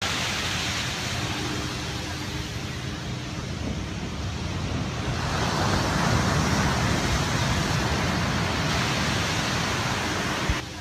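A steady rushing noise with no clear pitch, swelling about five seconds in, with a faint low hum in the first few seconds; it stops abruptly at the end.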